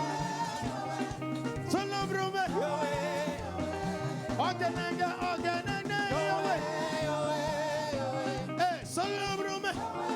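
Live African praise music: a church band playing with voices singing over a moving bass line.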